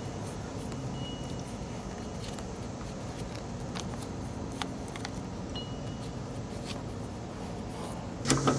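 Steady low background hum with a few faint, scattered clicks from handling small brake parts. Near the end, sharper metallic clicks and clinks begin.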